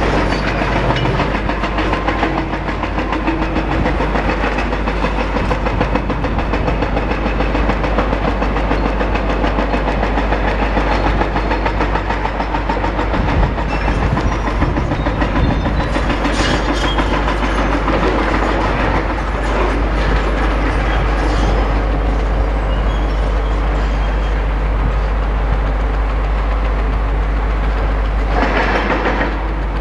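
Demolition excavator's diesel engine running under load, with steady clattering and crunching as its attachment breaks up large chunks of concrete to separate them from the steel rebar.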